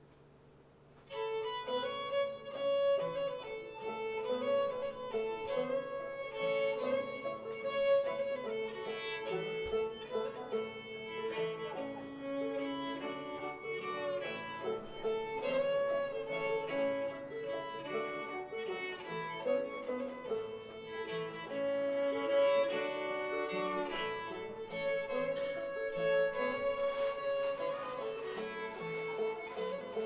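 Old-time string band playing a fiddle tune live, starting about a second in, with the fiddle leading over a steady drone-like line.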